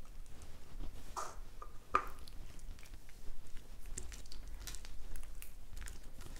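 Hands kneading, pressing and pulling freshly mixed So Slime: a string of soft wet squelches and sticky clicks. The slime is still watery and tacky, not yet kneaded through, so it clings to the fingers.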